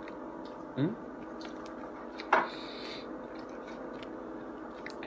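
Close-up eating sounds: chewing and the clicks of a plastic fork against a styrofoam takeout container. There is a short rising squeak just under a second in, and a sharp click a little past two seconds in, the loudest moment. A steady hum runs underneath.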